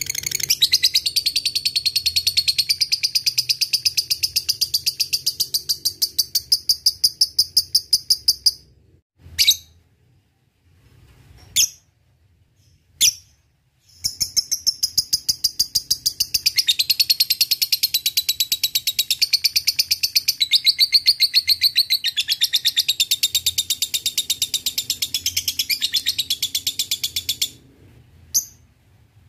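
Lovebird's 'ngekek': long runs of rapid, evenly repeated sharp high chattering notes. One run lasts about eight seconds, a few single calls follow, then a second run lasts about thirteen seconds.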